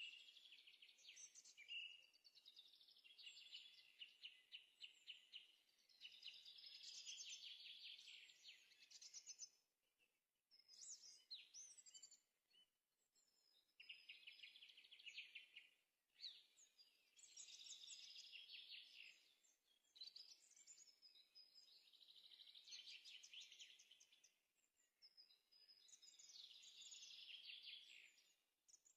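Faint birdsong: a songbird repeating phrases of rapid trills and chirps, each a few seconds long with short pauses between.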